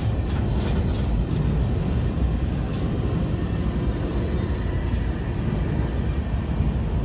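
Norfolk Southern freight train's gondolas and centerbeam flatcars rolling past close by: a steady low rumble of steel wheels on the rails.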